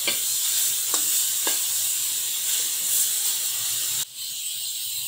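Pork pieces sizzling in a metal wok while being stirred with a spatula, with a few short scraping clicks of the spatula against the pan in the first two seconds. The sizzle drops suddenly about four seconds in and goes on more quietly.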